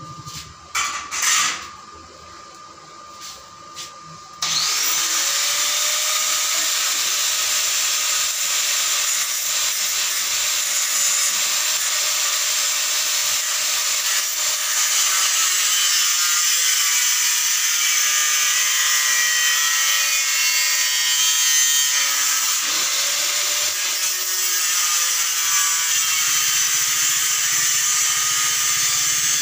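A few knocks, then an angle grinder spins up about four seconds in and runs steadily cutting and grinding steel tubing, with the crackle of arc welding alongside.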